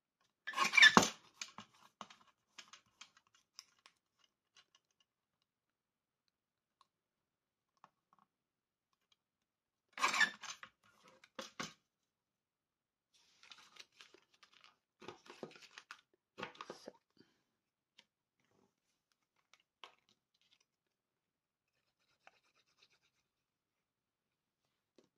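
A short, sharp scrape of a sliding paper trimmer cutting through cardstock about half a second in, then a second scraping burst around ten seconds. After it, scratchy rustling of small card pieces being handled and pressed down, with a few faint clicks.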